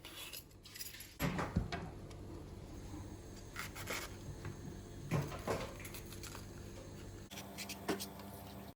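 Scattered knocks and rubbing of objects being handled, a few sharp clunks a second or so apart over a steady low background hum.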